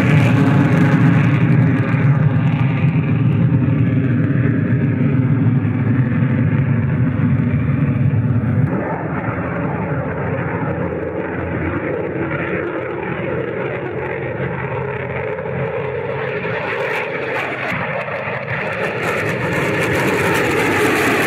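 Jet noise from an F-22 Raptor's twin turbofan engines in flight: a loud, steady rushing rumble that changes abruptly about nine seconds in and builds again near the end.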